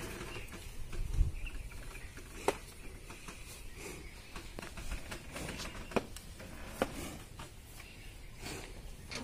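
Yoked water buffaloes stirring close by, with a dull thump about a second in and a few sharp clicks and knocks scattered through.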